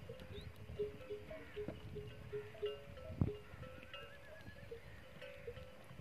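Bells on a herd of camels clinking irregularly, many short overlapping notes at a few fixed pitches, over low rustling. A sharp knock a little after three seconds in is the loudest event, and a short warbling whistle follows about four seconds in.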